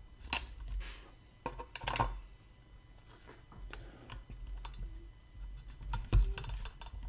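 Irregular small clicks and light knocks of a Dremel 3000 rotary tool being handled and seated in the plastic head cradle of a Dremel Workstation 220-01 drill stand. The tool is not running.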